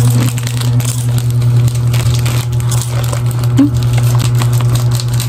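Rapid crackling, crunching and rustling close to the microphone as two people hurriedly chew chocolate-coated marshmallow snacks and handle the wrappers. A steady low hum runs underneath.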